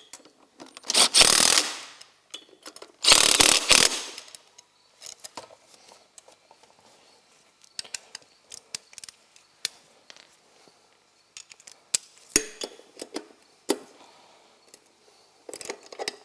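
Hand-tool work on a three-wheeler's wheels. Two loud rushing bursts, each about a second long, come near the start, followed by scattered metallic clicks and knocks.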